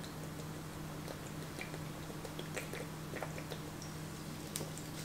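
Person gulping water from a plastic bottle: faint swallows and small clicks at irregular intervals.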